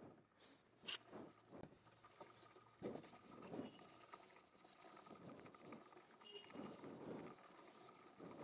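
Faint, intermittent scrubbing of a chain-cleaning brush on a motorcycle drive chain as the rear wheel is turned by hand, cleaning off the sprayed chain cleaner.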